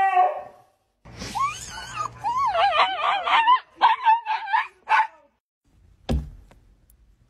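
A husky's howl trailing off, then a small fluffy dog giving a run of high, wavering yips and whines for about four seconds. Near the end comes a single sharp bonk from a cat at a window.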